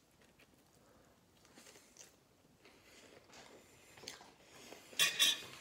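A person biting and chewing a mouthful of food, with faint mouth sounds; a short, louder burst of noise comes near the end.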